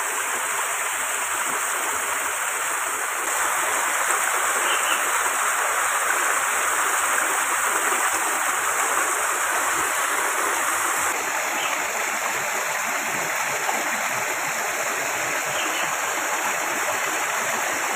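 Steady rush of flowing creek water, a little louder for a stretch in the middle, with a few faint short chirps.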